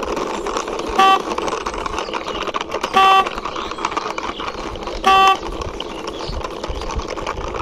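Toy motorbike pushed along by hand over a steady rolling noise, with three short horn beeps about two seconds apart.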